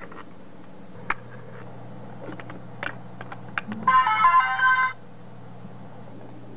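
A LEGO Mindstorms NXT brick powering on and playing its short electronic start-up tune, a run of changing notes lasting about a second, about four seconds in. Before it come a few light clicks.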